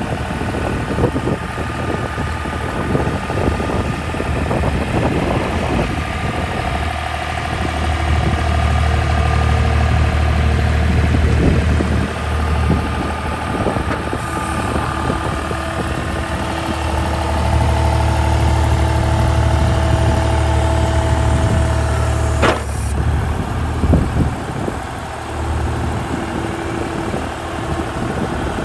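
John Deere 250 skid steer's diesel engine running, getting louder twice as it is worked, with steady whining tones over the engine note. A single sharp knock sounds near the end.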